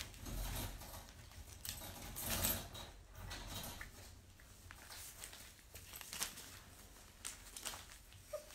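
Puppies moving about, making soft, irregular scuffling and rustling noises.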